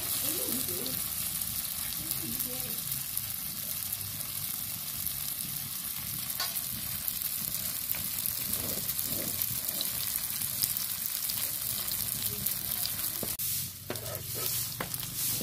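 Batter with small freshwater shrimp frying in hot oil in a nonstick pan, sizzling steadily. Near the end a metal spatula scrapes and knocks against the pan as it is worked under the pancake.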